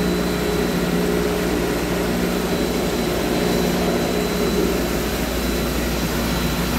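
Steady electric hum of the chlorinator's freshly repaired booster pump motor running, with water flowing into the slurry tank. The pump is working properly.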